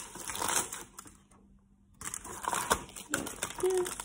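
Aluminium foil crinkling and rustling as it is handled and pulled about over a cake tin, breaking off for under a second partway through.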